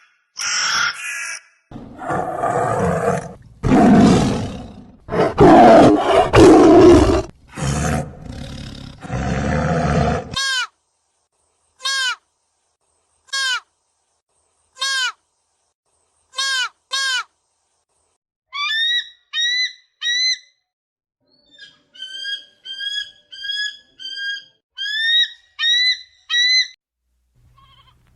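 A big cat roaring and growling in loud, rough calls for about ten seconds, then a bird giving short falling whistles about every one and a half seconds, followed by a quick series of short chirping calls.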